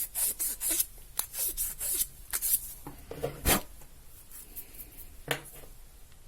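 Sandpaper rubbing by hand inside the hole of an acrylic ring blank: a quick run of short rasping strokes for about two and a half seconds, then a couple of hard knocks as the stainless steel ring core is tried in the hole for fit.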